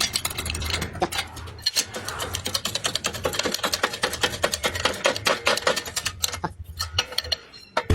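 Metal gearbox parts clinking and clicking rapidly and irregularly as they are handled, over a low steady hum; the clatter drops off briefly near the end.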